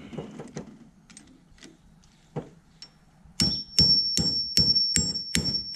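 Flaring tool being cranked down onto copper propane tubing to form a flare. A few scattered clicks give way, about halfway through, to loud, evenly spaced clicks at about two to three a second over a thin, steady high whine.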